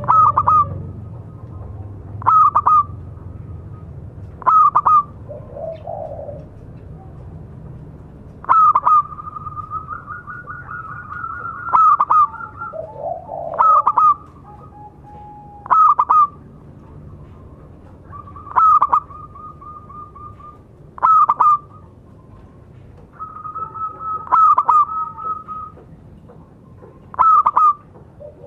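Local-strain zebra dove (perkutut) calling: short, bright cooing phrases repeat every two to three seconds. Between some of them come longer, rolling trilled coos.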